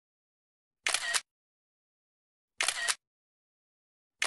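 Camera shutter click sound effect, repeated at an even pace of about one every second and a half to two seconds, with dead silence between; each click has a quick double snap.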